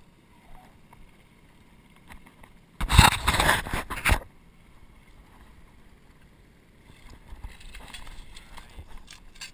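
A loud rush of noise lasting about a second and a half, starting about three seconds in, then splashing near the end as a coho salmon thrashes in a landing net at the surface.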